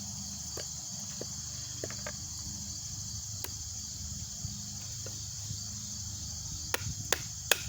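Steady, high chirring of insects throughout. Near the end, a quick series of sharp knocks: a baton striking the spine of a camping knife to split fatwood pine.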